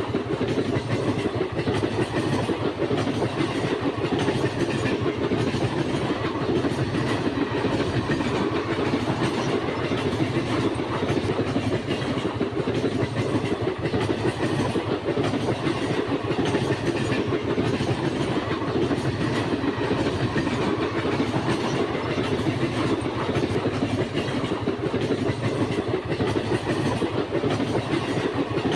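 Passenger train running at speed, its wheels on the rails making a steady, even running noise that stays at one level throughout, heaviest in the low-middle range.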